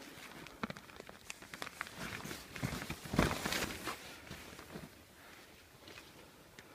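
Snow crunching and jacket fabric rustling as someone moves about in a snow trench, a run of irregular crunches and scuffs with the loudest scuffle about three seconds in, quieter near the end.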